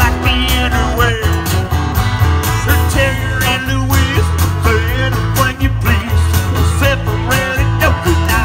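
A small live band playing through PA speakers: a singer over guitar and a steady beat.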